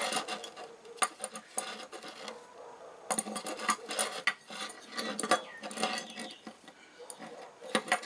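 Metal clicks, clinks and scraping from a steel multitool with a fitted adjustable wrench being handled and unfolded, its parts knocking together and against a wooden tabletop. The clicks come irregularly, several of them sharp and loud.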